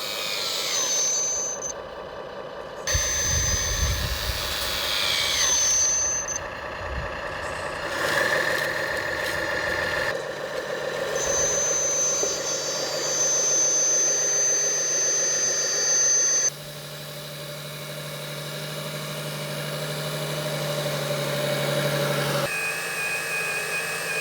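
Electric motors and hydraulic pump of radio-controlled model construction machines whirring and whining, their pitch rising and falling as they move, with a few low rumbles. The sound changes abruptly several times.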